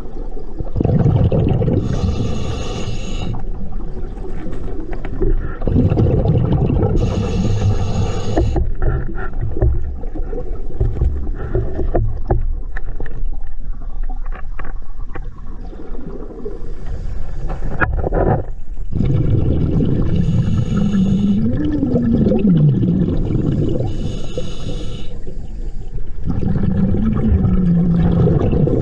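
Scuba breathing heard underwater: a constant low rumble and gurgle of regulator bubbles, with a short hiss about every four to five seconds as the diver breathes through the regulator. Twice in the second half a short low tone wavers up and down.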